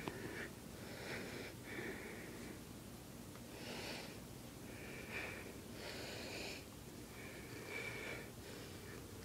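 A series of close sniffs and wheezy breaths, one every second or two, some with a faint nasal whistle.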